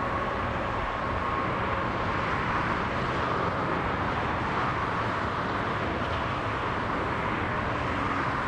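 Boeing 747 jet engines running on final approach: a steady rushing noise, with a faint whine that falls slowly in pitch and fades out about a second and a half in.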